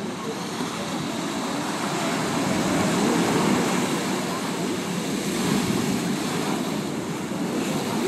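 Sea waves surging and breaking against a stepped concrete seawall: a continuous rush of surf that swells louder about three and a half seconds in and again near five and a half seconds.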